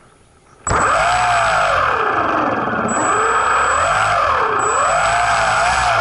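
A model T-28 airplane's motor and propeller start suddenly under a second in and run loud at high throttle for the takeoff roll, with a high whine and a pitch that wavers up and down.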